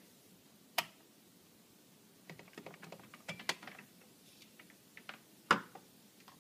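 Small plastic clicks and knocks as a plug-in adapter is pulled from a power strip and a plug is worked out of it, with a run of quick small clicks in the middle. The loudest click comes about two-thirds of the way in, as a piece is set down on a stone counter.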